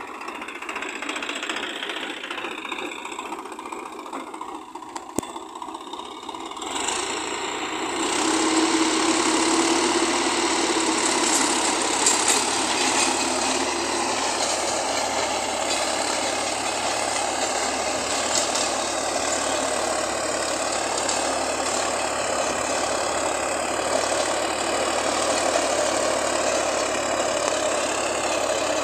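Swaraj 960 FE tractor's three-cylinder diesel engine running under load as it drives a rear-mounted rotavator through grass and soil. The sound steps up in loudness about eight seconds in and then holds steady.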